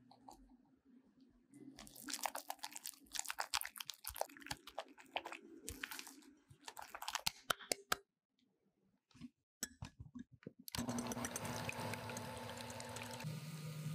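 Silicone whisk stirring thick batter in a glass bowl: quick wet clicking and scraping strokes. About eleven seconds in, an electric hand mixer starts beating egg whites, running steadily, its hum dropping lower near the end.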